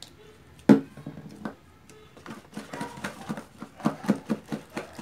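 A sharp knock about a second in, then a plastic spoon stirring fluffy shaving-cream slime in a plastic bowl: a regular squishing, about four strokes a second, as extra activator is mixed in.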